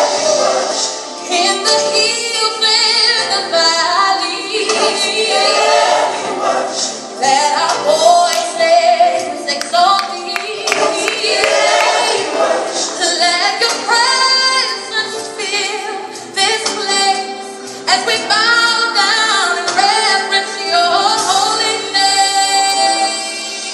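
Gospel worship song with a female voice singing over instrumental backing, thin with little bass.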